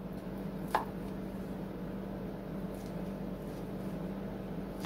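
Steady low room hum with a faint hiss, broken by one brief light click about a second in.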